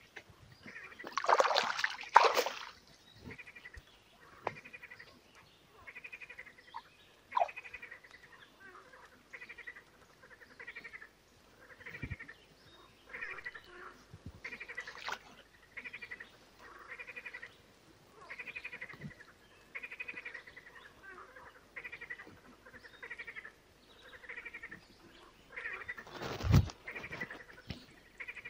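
An animal call repeated at an even pace, about once every three-quarters of a second, through most of the stretch. A loud splash and rustle of a keepnet going into the water comes near the start, and a knock comes near the end.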